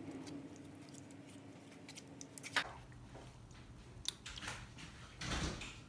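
Spoon scooping and scraping thick, oily chili paste (sambal) in a pan, with soft wet squelches. A faint steady hum cuts off with a sharp click about two and a half seconds in, and a longer squelching scoop comes near the end.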